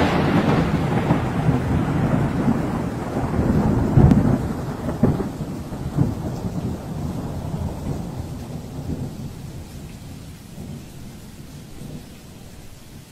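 Thunder rumbling with rain, a long roll with a couple of swells early on that slowly dies away.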